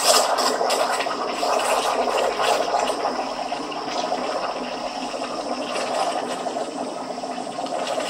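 Espresso machine hissing and gurgling: a steady rushing sound that eases off slowly over several seconds.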